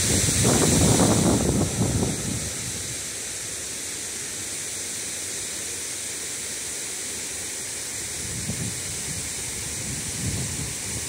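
Steady rushing hiss of a shallow creek running over rocks. Wind buffets the microphone with low rumbling gusts in the first two seconds and again briefly near the end.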